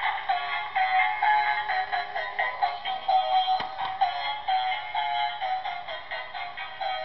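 Battery-powered toy police car's built-in sound chip playing a tinny electronic melody, a quick run of short notes, through its small speaker. A couple of light knocks about three and a half seconds in.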